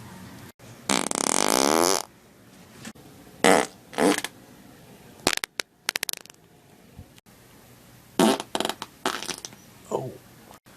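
A run of loud human farts, one after another: first a long pitched one lasting about a second, then a string of shorter ones and sputters, and near the end one that falls in pitch.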